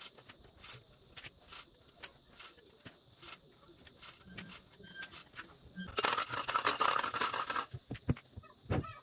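Light clicks at a steady rhythm, about two a second, with a louder rustling, scraping noise about a second and a half long starting about six seconds in.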